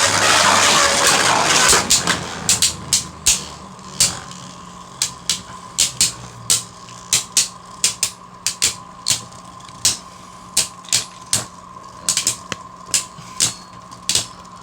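Two Beyblade Burst tops, Helios Volcano and Rage Longinus, spinning in a stadium. A dense whirring fills the first two seconds, then sharp irregular clicks of the tops striking each other over a faint steady spinning whine.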